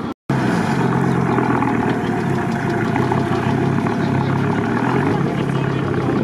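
Lada Niva off-road truck's engine idling steadily up close.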